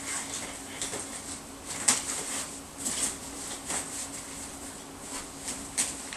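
Kolcraft Contours Bliss stroller seat being handled on its frame: scattered plastic clicks and knocks with fabric rustling, the sharpest knock about two seconds in, over a faint steady hum.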